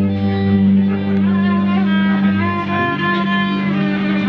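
Violin playing a melody of long bowed notes, some with a slight waver, over a steady low held accompaniment in a small live acoustic band.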